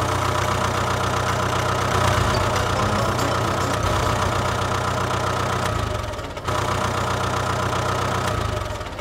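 Steady tractor engine running sound, laid over toy tractor play. It drops out briefly about six seconds in, then resumes, and fades near the end.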